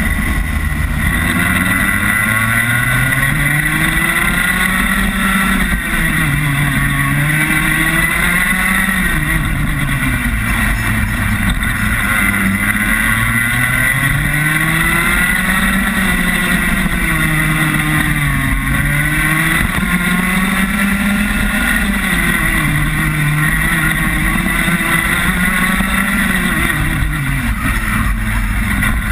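Rotax Max 125 cc single-cylinder two-stroke kart engine heard onboard, its pitch climbing as it accelerates and dropping as it comes off the throttle, over and over through a lap. The rises and falls come every few seconds.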